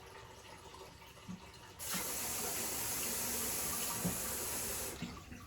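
Water running from a drinking-water tap in a steady stream for about three seconds, starting about two seconds in and shutting off near the end, with a couple of faint knocks just before it starts.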